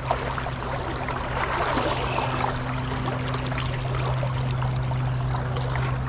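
River water running and splashing, with small scattered splashes and a steady low hum underneath.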